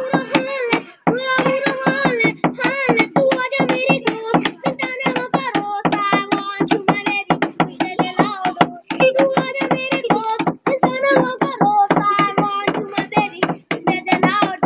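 A young boy rapping fast and nonstop in a high child's voice, unaccompanied, in quick chanted phrases with only brief breaks for breath.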